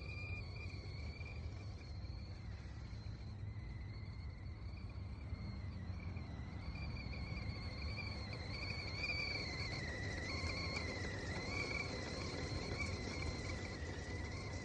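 Steam whistling at a high, slightly wavering pitch, over a low steady rumble.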